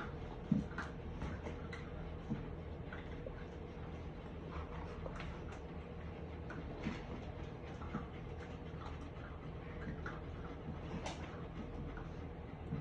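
Scattered small clicks and taps as German Shepherd dogs and puppies move about, over a steady low hum, with a soft thump about half a second in.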